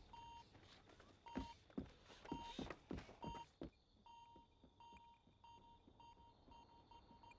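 A bomb robot's countdown timer beeping: a short high single-pitch beep repeating, spaced out at first and quickening from about halfway through as the countdown runs down. Several dull thuds sound under the beeps in the first half.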